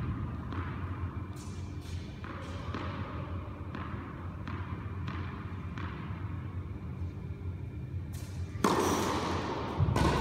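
Tennis ball bounced on an indoor hard court: a string of short sharp taps, roughly one every second, echoing in a large hall. Near the end a louder, sustained rush of noise sets in suddenly.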